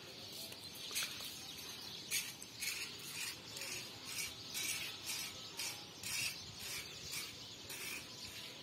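Insects calling in a steady rhythm, short raspy chirps about twice a second, faint over a low background hiss.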